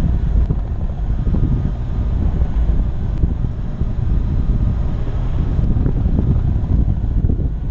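A 4x4 driving along a sandy, stony dirt track: steady low rumble of engine and tyres, with wind buffeting the microphone of a hood-mounted camera.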